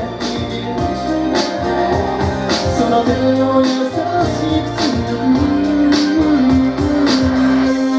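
Japanese pop song playing: a moving melody over a steady beat, settling onto a long held note near the end.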